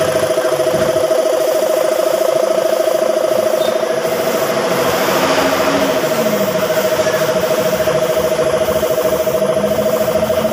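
Air compressor running steadily: a pitched mechanical hum with a fast, even pulse over a light hiss.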